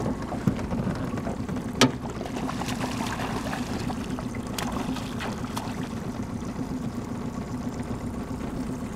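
A small boat motor running steadily at low speed with a low hum. There is a sharp click about two seconds in, and a hooked trout splashes at the surface around the middle.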